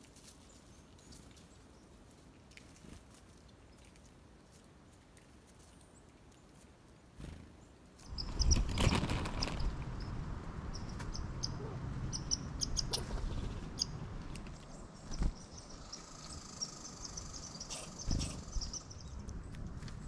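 Short high bird chirps from small songbirds, scattered and frequent, over rustling. The sound is quiet with a few faint ticks at first and turns much louder from about eight seconds in.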